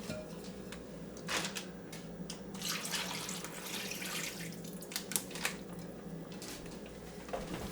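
Liquid marinade of oil and vinegar being poured and sloshed over raw chicken wings, in a few short wet splashing spells with light clicks between them.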